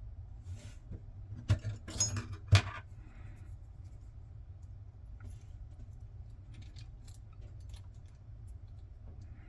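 Small metal lock parts clattering as a padlock is gutted: a quick run of sharp clicks from about one and a half to two and a half seconds in, the last the loudest, then a few faint light ticks.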